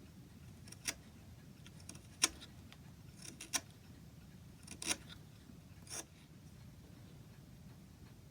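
About six sharp, irregularly spaced clicks and snips of hand tools trimming a small wooden patch, over a faint low hum.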